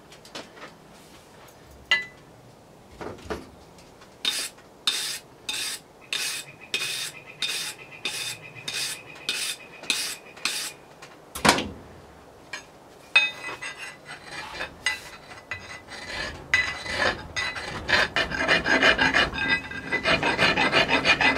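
A hand file rasping across the steel of a Collins double-bit axe head, in even strokes about two a second. There is a single sharp knock about halfway through. Toward the end the strokes become faster and denser and grow louder.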